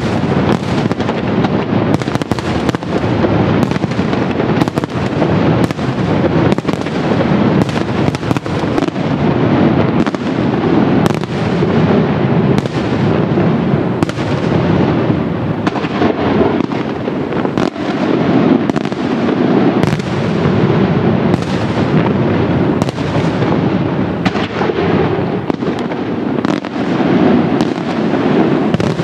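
Fireworks display: a dense, unbroken barrage of shell bursts and sharp bangs, the reports overlapping into a continuous rumble.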